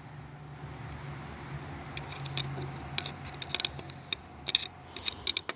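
Scattered light clicks and rattles of small parts and debris being handled in a lawn tractor's engine bay, coming more often in the second half, over a faint steady low hum.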